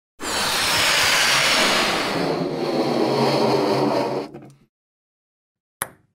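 A dense, noisy rushing sound effect that lasts about four seconds and fades out, followed a second later by a single sharp tap.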